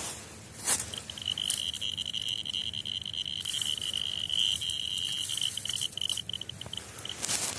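Radiascan-701A handheld dosimeter's beeper sounding one steady high beep that starts about a second in, breaks into quick beeps near the end and then stops. Brief rustles of dry leaves are heard around it.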